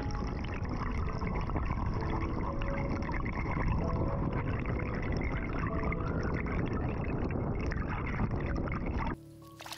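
Water pouring and splashing steadily as a dense, rushing noise that cuts off abruptly near the end.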